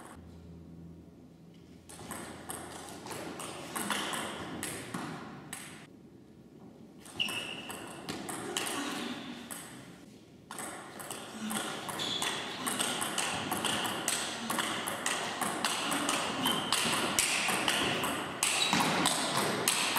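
Table tennis ball being struck by paddles and bouncing on the table during rallies: quick series of sharp ticks, broken by short pauses between points.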